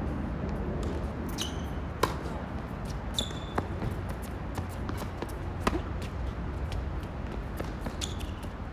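Tennis rally on a hard court: the ball knocks sharply off rackets and the court about two seconds in, again a second and a half later and near six seconds, the first the loudest. Short high squeaks of shoes on the court come between the shots, over a steady low hum.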